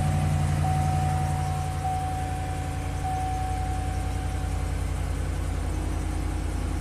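2013 Chevy Silverado 2500HD's V8 engine idling steadily just after a prompt start, its rodent-chewed camshaft position sensor wiring now repaired. A thin, steady high tone runs over the idle and fades out about four seconds in.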